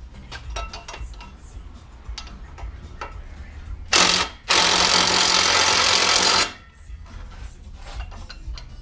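Impact wrench running in two bursts, a short one about four seconds in and a longer one of about two seconds right after, tightening the bolts of a bearing separator clamped behind a differential pinion bearing. Light clicks of tools being handled before and after.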